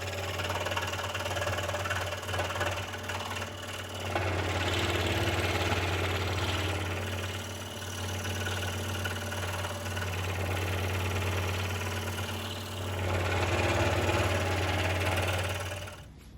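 Scroll saw running and cutting through a thick block of wood: a steady low motor hum under a rasping cutting noise that swells and fades as the blade works. The saw shuts off near the end.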